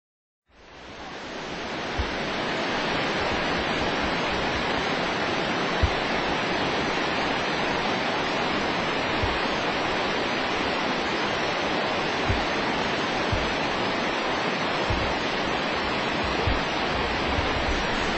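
Steady rushing noise of Shannon Falls, a 335-metre waterfall cascading down rock, fading in over the first two seconds. A few brief low thumps sound under the rush.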